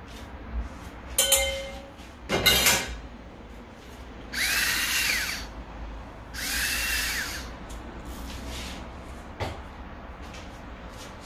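A small electric motor whirring twice, about a second each, its pitch rising as it spins up and falling as it winds down, with a grinding hiss. Before it, a single ringing clink and a louder knock.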